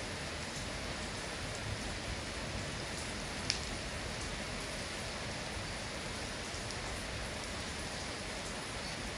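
Steady rain falling, with one sharp tick about three and a half seconds in.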